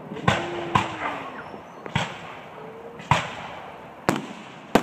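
Aerial fireworks shells bursting overhead: six sharp bangs about half a second to a second apart, each trailing off briefly.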